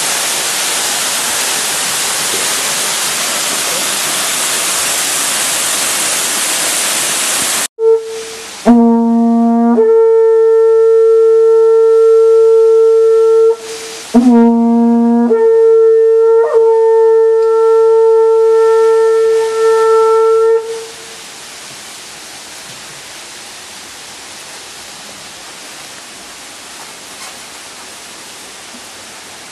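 Waterfall rushing loudly, then cut off abruptly about eight seconds in. A yamabushi's conch-shell trumpet (horagai) follows, blown in two long held notes, each opening on a brief lower note before jumping up an octave. Quieter falling water continues behind and after the notes.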